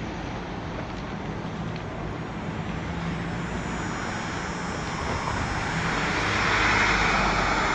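Road traffic: a steady traffic hum, with a motor vehicle passing close that swells to its loudest about seven seconds in and then eases off.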